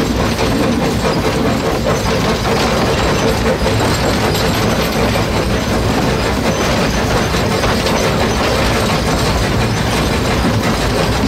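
L 509, an 1877 2-4-0 side tank steam locomotive, running on the line, heard from its footplate: a steady, loud mechanical rumble and clatter of the engine and its wheels on the track.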